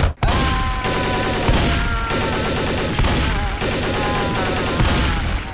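Sustained rapid automatic gunfire, a dense barrage with a fresh heavy burst about every second and a half and a few high held tones over it, fading out near the end.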